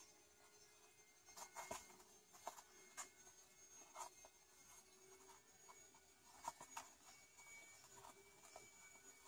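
Near silence broken by faint, scattered scratches and taps of a playing kitten's paws and claws on a bare floor.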